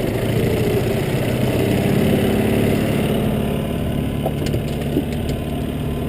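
A boat engine running steadily at low speed, with a few faint light knocks about four to five seconds in.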